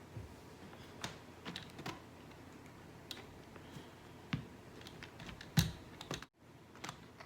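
Irregular light clicks and taps from handling a small plastic handheld sewing machine and fabric, with a louder knock about five and a half seconds in; the motor is not running.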